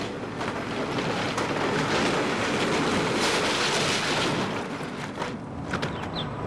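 Hydraulic excavator demolishing a building: a continuous din of crashing, cracking and crunching as walls give way and debris falls, easing off slightly near the end.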